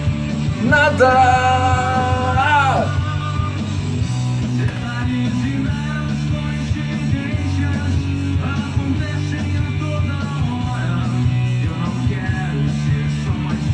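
Rock song playing: a singer holds the word "nada" on one long note about a second in, over a full band of bass, drums and guitar that carries on after.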